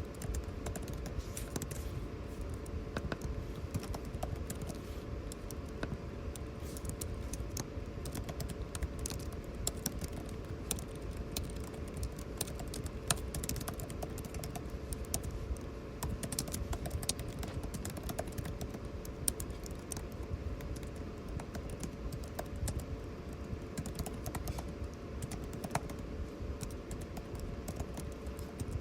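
Computer keyboard typing: quick, irregular key clicks that go on without pause, over a steady air-conditioning hum.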